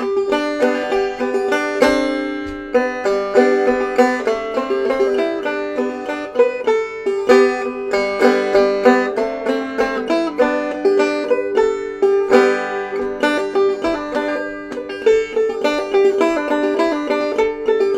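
Banjo played clawhammer style: a continuous run of plucked notes and brushed strums in an old-time tune.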